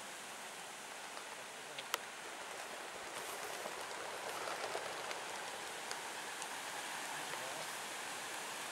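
Steady rushing hiss of wings from a large flock of racing pigeons circling together overhead, with a single sharp click about two seconds in.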